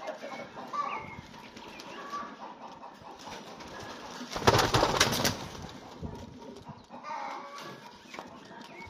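Old Polish homing pigeons in their loft pen, with a burst of wing flapping lasting about a second just under halfway through and a few faint bird calls around it.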